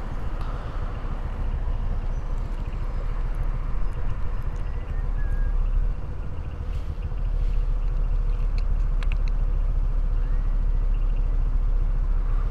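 Motor scooter engine idling while the scooter stands nearly still, with road traffic around it, heard through a helmet-mounted microphone. Near the end a person whistles a rising note and holds it.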